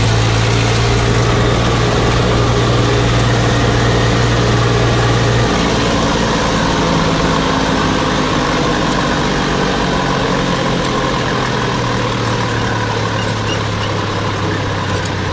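Eicher 380 tractor's diesel engine running steadily while the tractor drives along, heard close from the driver's seat. Its low hum eases a little about five seconds in.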